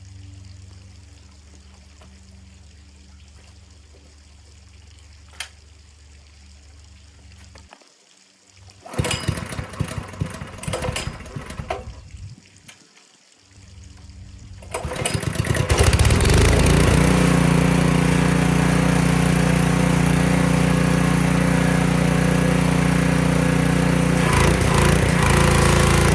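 Honda small engine on a pressure washer being pull-started after a tune-up: a first attempt around nine seconds in gives a few seconds of rough, uneven noise that dies away, then about fifteen seconds in the engine catches and runs loud and steady.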